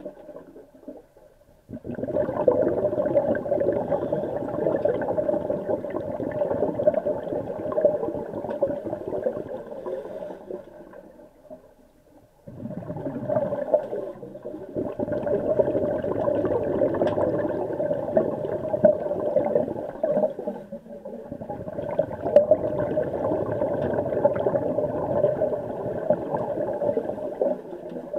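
Scuba exhaust bubbles gurgling and rumbling, heard underwater through a submerged camera, in long stretches broken by short lulls near the start, about twelve seconds in and about twenty seconds in.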